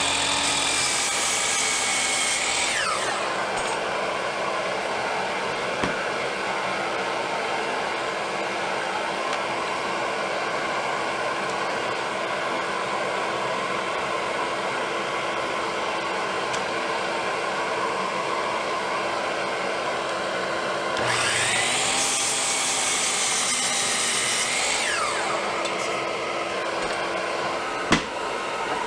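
Electric power tool motor speeding up and winding down twice, each run lasting a few seconds, over a steady machine hum. A sharp click comes near the end.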